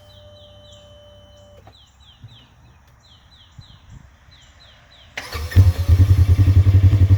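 Polaris RZR XP 1000 side-by-side's engine starting about five seconds in and settling into a loud, evenly pulsing idle. Before it, only faint repeated high chirps.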